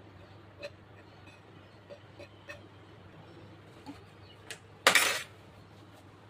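Light clinks and taps of kitchen utensils and dishes, a few scattered strikes, then one louder, brief clatter about five seconds in.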